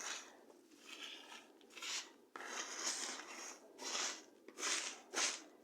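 Gift-basket paper shred rustling and crinkling as it is handled and pushed into the basket, in several short bursts.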